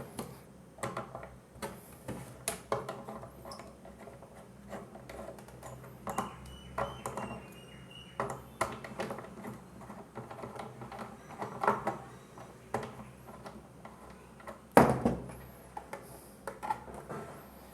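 Irregular small clicks, taps and scrapes of hands working cable wires into a plastic plug top, with one sharper knock about 15 seconds in.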